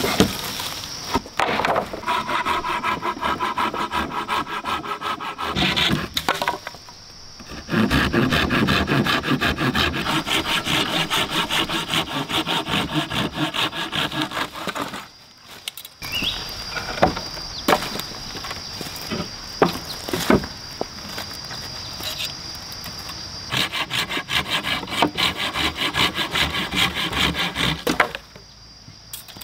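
Hand saw cutting through old weathered wooden boards in quick, even back-and-forth strokes. It goes in three long runs, broken by short pauses.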